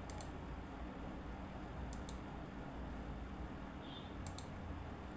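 Computer mouse double-clicks: three quick pairs of sharp clicks about two seconds apart, over a faint steady low hum.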